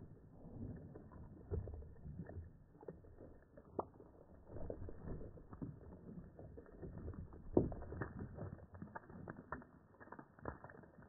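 Water glugging and sloshing out of a plastic water bottle that a .22 hollow point has holed, as the bottle rolls in the grass. The sound is muffled, with scattered small clicks and one louder knock about seven and a half seconds in.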